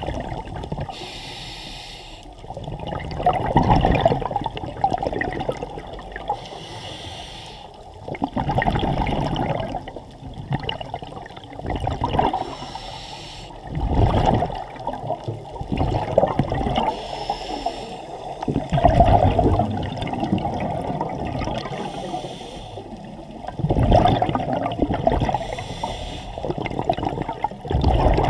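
Scuba diver breathing through a regulator underwater. A short hiss on each inhale through the demand valve is followed by a louder bubbling burst of exhaled air, the cycle repeating about every five seconds.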